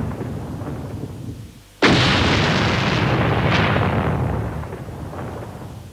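A series of booms. The rumble of one is fading away when a new boom hits suddenly about two seconds in and dies away slowly over the next few seconds, with two lighter cracks while it fades.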